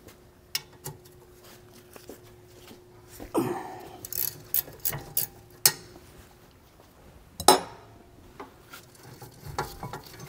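Scattered metal-on-metal clinks and a scrape from a ratcheting wrench and a loosened 18 mm brake caliper bracket bolt being unthreaded and handled. There is a scrape about three seconds in, a run of light clinks around four to six seconds, and the sharpest clink about seven and a half seconds in.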